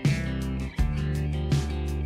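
Background music: a guitar-led instrumental with a regular beat.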